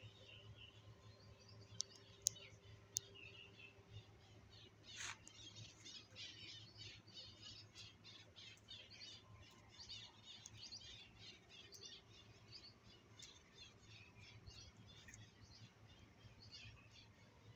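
Faint chirping of small birds, many short high chirps close together. Three sharp clicks come in the first few seconds.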